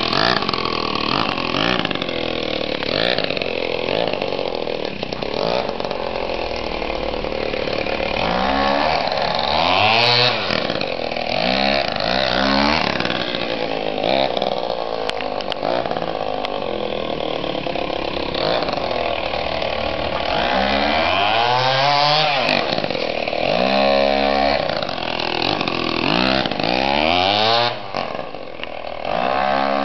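The small two-stroke petrol engine of a 1/4-scale RC car running and revving up and down over and over, with several quick rising-and-falling sweeps in pitch. It eases off briefly near the end.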